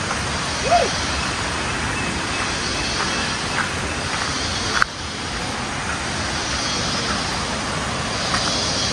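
Steady rushing of a river's flowing water, an even wash of noise, with a faint click a little before halfway.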